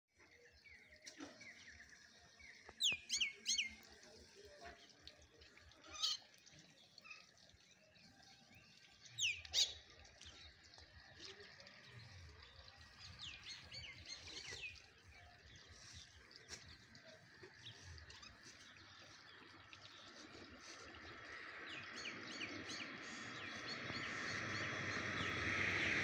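A flock of house sparrows chirping: a few loud, sharp falling chirps in the first ten seconds, then softer scattered twittering. Over the last several seconds a steady rushing noise swells louder.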